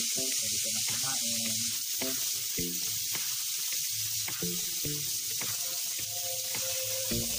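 Pork belly slices sizzling on an indoor grill pan: a steady hiss of frying fat with scattered small pops and crackles.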